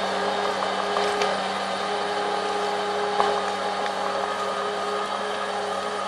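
Small crawler bulldozer's diesel engine running steadily as the machine tracks away, a constant hum with a few faint clicks.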